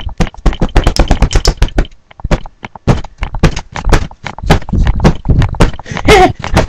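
Rapid, irregular, loud clicks and knocks right at the microphone, about ten a second, with a short lull about two seconds in: contact or handling noise on the webcam's microphone.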